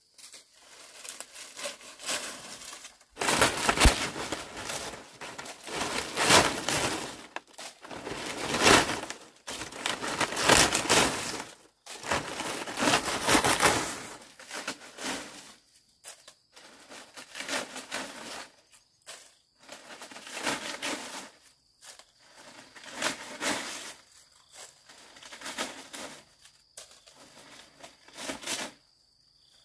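Irregular bursts of rustling and crinkling, loudest in the first half. From about halfway, a steady high insect drone sits underneath.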